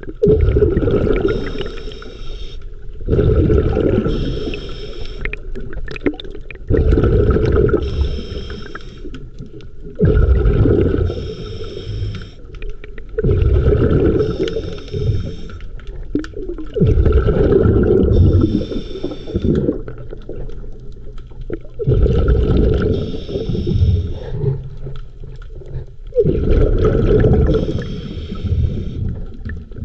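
Scuba diver breathing through a regulator underwater: a loud bubbling rush of exhaled bubbles every three to four seconds, with quieter stretches between breaths.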